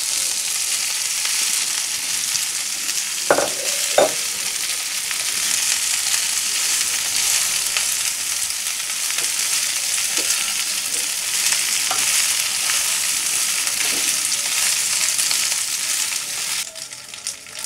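Boiled penne pasta sizzling in hot olive oil with broccoli and garlic in a nonstick frying pan while being stirred with a slotted spatula: a steady frying hiss, with two short knocks a few seconds in. The sizzle drops away near the end.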